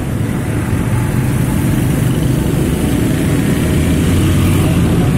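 Coach bus with a loud straight-through "jet darat" aftermarket exhaust, its diesel engine running with a steady low drone as it drives along, heard from a motorcycle following close behind.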